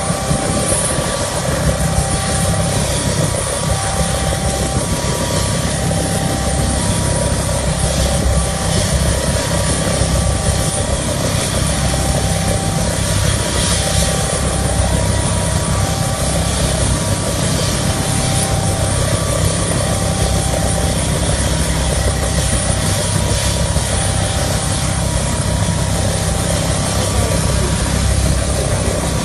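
Military helicopter running on the ground, a steady loud turbine and rotor noise with a low pulsing thump from the blades.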